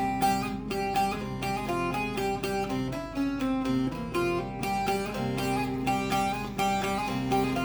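Bağlama (Turkish long-necked saz) playing an instrumental melody with quick, even plectrum strokes over sustained drone notes.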